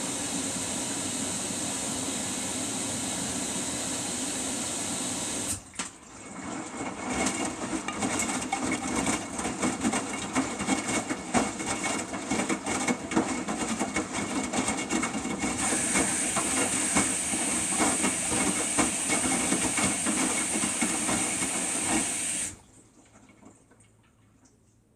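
Samsung washing machine running: a steady hiss, then from about five and a half seconds in an irregular clattering and knocking that carries on, with the hiss coming back partway through. About three seconds before the end it all stops abruptly.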